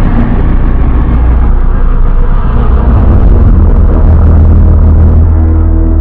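Custom monster sound effect: a loud, deep, continuous rumble with a rough growling texture that thins out over the second half.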